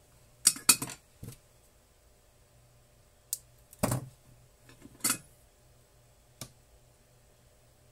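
Clicks, knocks and light clatter of small parts and a soldering iron being handled on a wooden workbench: a quick cluster about half a second in, then single knocks and clicks a second or so apart.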